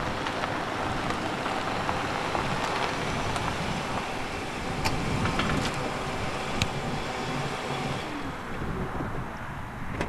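Ford Taurus sedan driving up slowly over gravel and pulling to a stop, with steady tyre noise and a few small ticks. The noise drops away about eight seconds in as the car stops.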